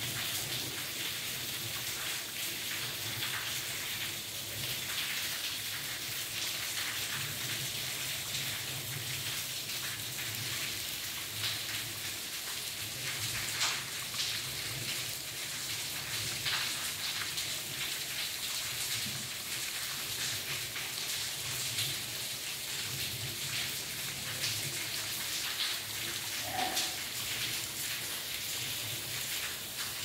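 Steady rain falling, with scattered sharper drops landing close by. A brief single tone sounds near the end.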